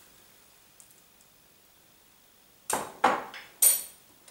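Near silence, then about three seconds in three sharp metal knocks against a dish, as the crushed garlic paste is tapped out into the mixing bowl.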